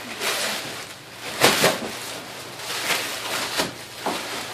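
Plastic bubble wrap crinkling and rustling as it is grabbed and shaken, in a handful of separate bursts, the loudest about a second and a half in.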